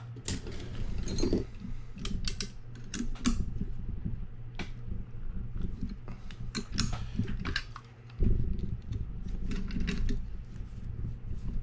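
Irregular metal clicks and clinks from a box wrench on the handle nut and star drag of a Penn Senator 9/0 big-game reel as it is worked loose, with the reel shifted on the bench and a heavier knock about eight seconds in.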